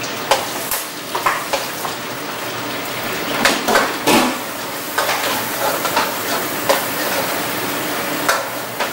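Minced garlic sizzling in hot melted butter in a frying pan, just added, the start of sautéing it golden. A metal utensil stirs and scrapes it, with irregular clinks against the pan over the steady hiss.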